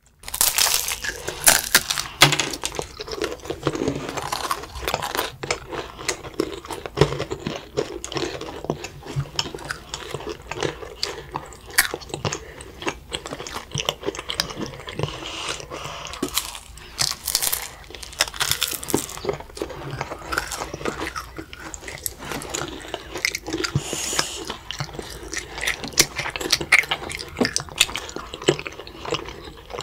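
Crisp nougat crackers crunching as several children bite into them and chew, a dense, irregular run of crunches and small cracks.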